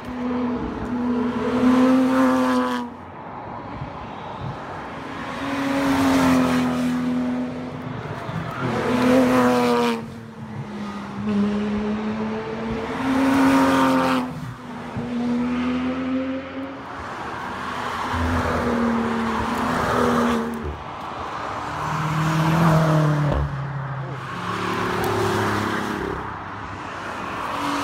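Tarmac rally cars passing at speed, their engines revving, the pitch climbing and dropping over and over with throttle and gear changes, loudest each time a car goes by close.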